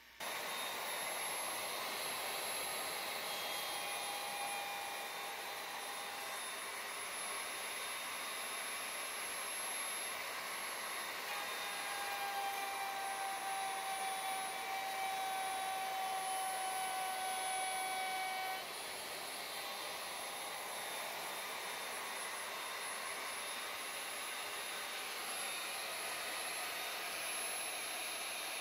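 Electric plunge router running at speed with its bit milling a recess into the end grain of a thick wooden cutting board: a constant high-pitched motor whine with cutting noise, dipping slightly in level about two-thirds of the way through.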